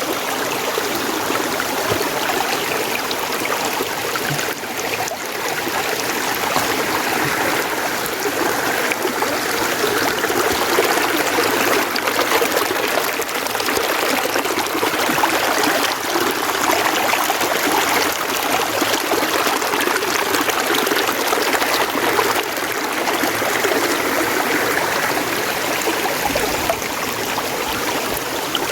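Mountain stream running: a steady, unbroken wash of flowing water.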